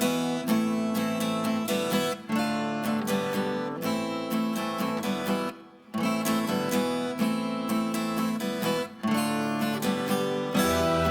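Acoustic guitar music, strummed chords with short breaks between phrases. A low drone comes in near the end.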